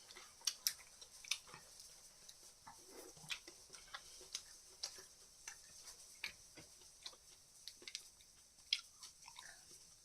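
Quiet, irregular small clicks and smacks of people eating grilled chicken sekuwa, a few a second.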